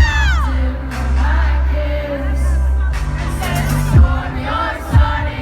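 Live pop concert music: singing over a deep sustained bass synth, with a heavy kick drum coming in about once a second near the end.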